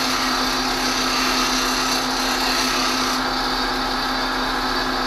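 Bench grinder running with a steady hum while a high-speed-steel plane iron is ground freehand against its coarse wheel. About three seconds in the iron comes off the wheel and the grinding noise drops away, leaving the grinder spinning.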